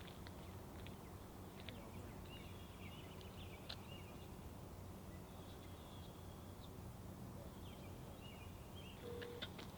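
Quiet outdoor ambience with faint, distant bird calls, short and high, coming a few times.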